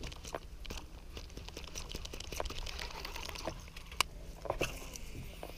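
Faint, irregular clicks and rustles from handling a baitcasting rod and reel, with one sharper click about four seconds in.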